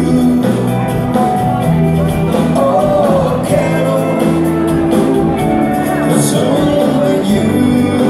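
Live band playing a song with a singer, loud and continuous.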